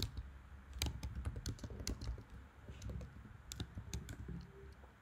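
Typing on a computer keyboard: a run of irregularly spaced keystroke clicks as a line of code is entered.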